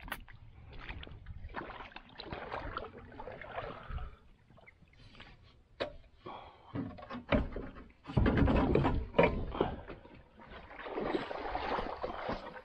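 Water sloshing around a small plastic duck boat as it is handled and pulled up onto a concrete ramp, with scattered knocks and scraping against the hull; the boat's motor is not running.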